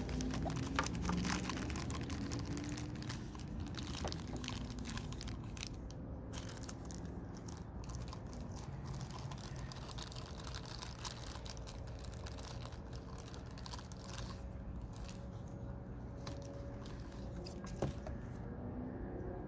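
Crinkling and crunching of plastic packaging being handled, as the resin tube is taken out of a windshield repair kit. A steady low hum runs underneath.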